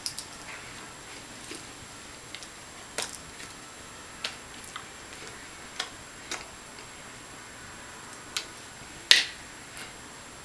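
Scattered sharp clicks and slaps of hands and fingers meeting while a person signs, with no voice; about eight of them, irregularly spaced, the loudest about nine seconds in.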